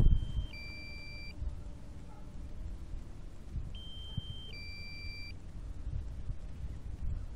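Electronic alert beep from the DJI Phantom 3 drone's controller, sounding twice about four seconds apart. Each beep is a steady high tone that steps down to a lower, doubled tone, about a second and a half in all, over a faint low rumble.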